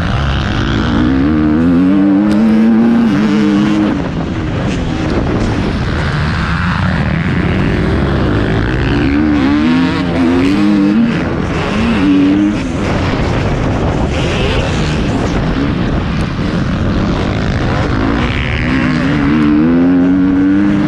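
Motocross bike engine heard from on board while racing, revving up hard and dropping back as it shifts and rolls off, again and again. The revs climb to peaks about two seconds in, around nine to eleven seconds in, and near the end.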